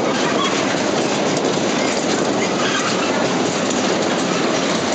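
Steady rumbling clatter of a Tilt-A-Whirl in motion, heard from inside a spinning car: the car and platform wheels rolling over the ride's steel track.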